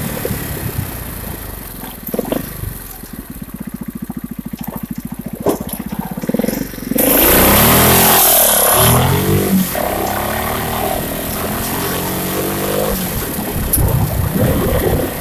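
Quad's Suzuki 500cc twin-cylinder motorcycle engine running at low revs, then revving up and down in rising and falling pulls. About seven seconds in, a loud rushing noise swamps it for about two seconds.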